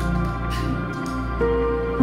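Soft background music with long held notes; a new note comes in about one and a half seconds in.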